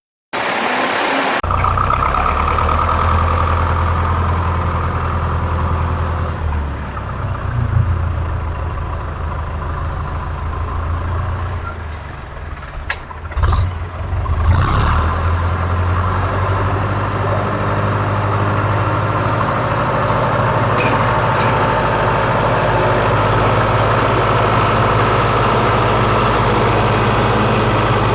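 A vehicle engine running steadily at idle, with a few short knocks and clanks around the middle.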